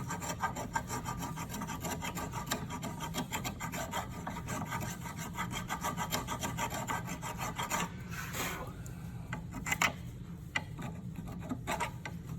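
Hand brake file rasping back and forth in quick strokes on a brake caliper bracket, cleaning rust and scale from where the brake pads slide. Near the end the strokes give way to a few separate scrapes and clicks.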